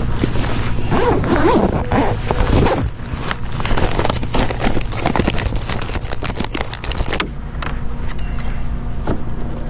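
Crinkling of clear plastic zip-top bags and clicking of fishing tackle (hooks, soft-plastic lures and pliers) being handled, in a dense run of irregular crackles and clicks. About seven seconds in the handling stops and it goes quieter, with only scattered clicks.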